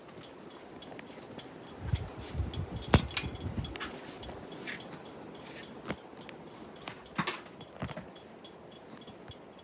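Craftmade Presidential II ceiling fan running on high, with a faint tick about three times a second. A low rumble and a few sharp clinks come around three seconds in, the loudest then, and more single clinks follow later.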